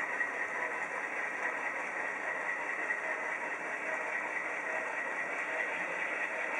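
HO-scale model train running: steady locomotive sound from DCC sound decoders played through small onboard speakers, mixed with freight cars rolling along the track.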